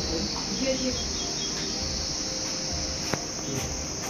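Insects shrilling steadily in a high, even drone, with a single sharp click about three seconds in.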